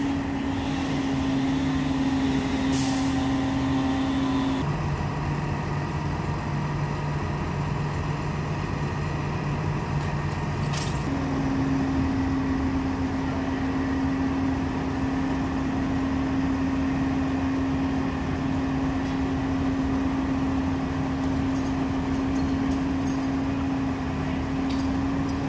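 Utility trucks' engines running at raised speed to drive the hydraulic booms, a steady drone. Its higher held tone drops out about four and a half seconds in and comes back about eleven seconds in, while a lower tone holds for the first twelve seconds.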